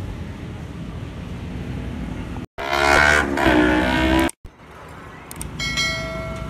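Steady roadside traffic noise, broken by an edit into a loud stretch of pitched sound whose pitch shifts, then quieter ambience and a bright electronic chime with a steady ring near the end, the sound effect of an on-screen subscribe button.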